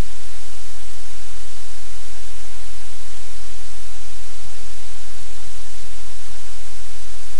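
Loud, steady static hiss across the whole range, with a low electrical hum underneath; no distinct events.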